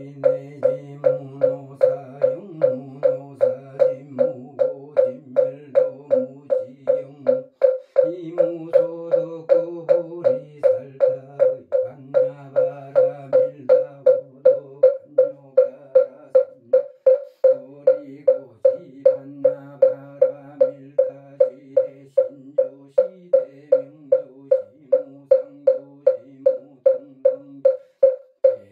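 Buddhist moktak (wooden fish) struck with a wooden stick in a steady beat, a little over two strikes a second, each knock ringing at the same hollow pitch. Under it a man's low, droning chant runs in long held phrases, breaking off briefly every few seconds: Buddhist prayer chanting kept in time by the moktak.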